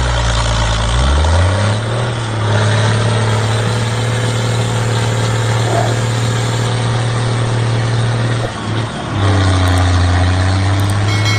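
Wired electric motor of a homemade mini tractor running under load while hauling a trailer of sand. It is a steady low hum that climbs in pitch over the first two seconds as it speeds up, and sags briefly about eight and a half seconds in before settling again.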